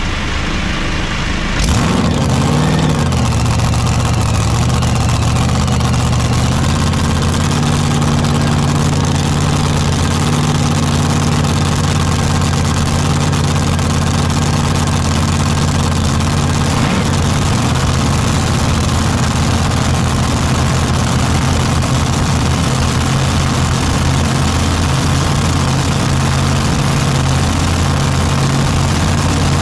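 Light-modified pulling tractor's engine comes in suddenly about two seconds in, rises and falls in pitch briefly, then idles steadily.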